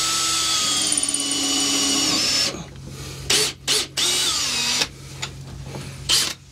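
Battery drill pilot-drilling a hole through a foam-filled bulkhead. The motor whines steadily for about two and a half seconds, then stops. A few short trigger bursts follow, then a second run of about a second.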